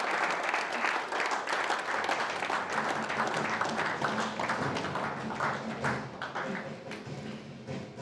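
Audience applauding, many hands clapping; the clapping thins out and fades over the last few seconds.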